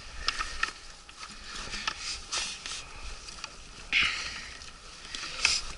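Handling noise from hands working on an outboard motor's transom clamp bracket: scattered light clicks and knocks, with a short rustle about four seconds in.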